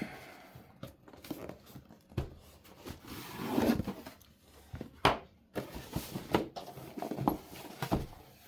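A cardboard box being opened and its packaging handled: rustling, tearing and crinkling with scattered clicks and knocks, the loudest knock about five seconds in.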